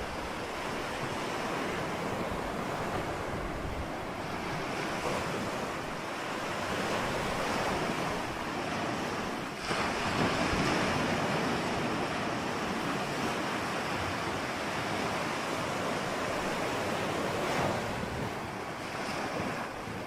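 Ocean surf: a continuous rush of breaking waves that swells and eases, with a brief dip about halfway through before a louder surge.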